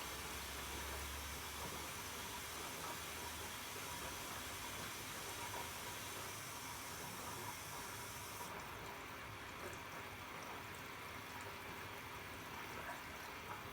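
Arçelik 3650 SJ washing machine taking in water: a steady hiss of water running into the drum, with a low hum in the first couple of seconds. The highest part of the hiss drops away about eight seconds in.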